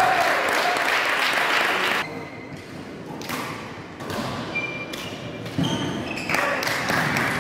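Badminton rally in a sports hall: sharp racket strikes on the shuttlecock less than a second apart, with short squeaks of shoes on the court floor, between two stretches of loud steady hall noise.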